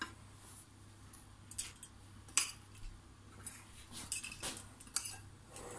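Metal spoon clinking and scraping against a glass dessert cup and a plate as biscuit crumbs are spooned out: a few scattered light clinks, the sharpest about two and a half seconds in.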